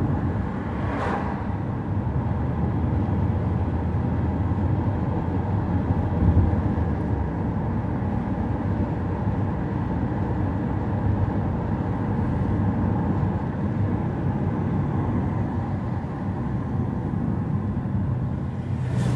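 Steady rumble of a car driving, engine and tyre noise on the road, with a brief whoosh about a second in.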